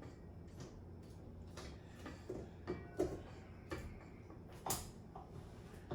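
Light, irregular clicks and taps of a utensil against a mixing bowl, over a faint steady low hum.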